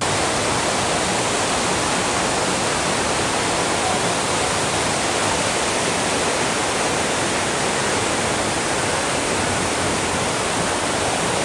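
Fast-flowing canyon river rushing, a steady, loud, even roar of water, loud enough to drown out voices.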